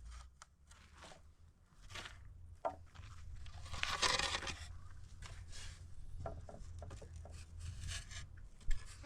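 Scattered light knocks and clicks of hands-on work, with one louder scrape lasting under a second about four seconds in.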